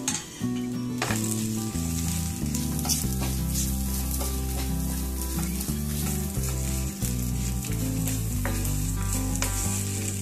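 Chopped onions, coconut pieces and whole spices sizzling in a little oil in a frying pan, stirred and scraped with a wooden spatula, with background music playing steady notes underneath.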